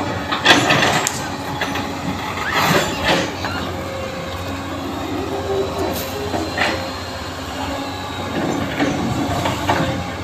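Heavy machinery running steadily, a low diesel-like hum with scattered clanks and scrapes.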